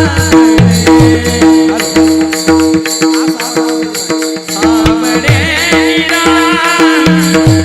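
Marathi devotional abhang music: hand drums play a steady rhythm over a sustained drone, and a male voice sings a long, ornamented phrase in the second half.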